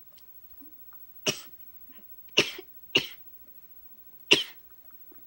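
A woman coughing four times while eating, short sharp coughs spread over about three seconds, as food catches in her throat.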